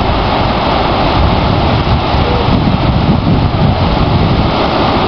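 Steady noise of small waves breaking and washing on a beach, with wind rumbling on the microphone.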